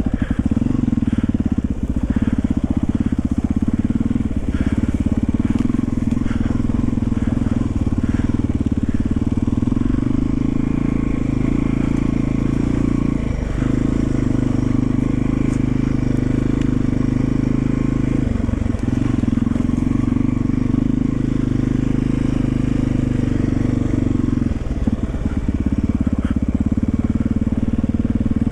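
1991 Yamaha XT350's air-cooled single-cylinder four-stroke engine running steadily as the bike is ridden, with three brief dips about 13, 18 and 25 seconds in.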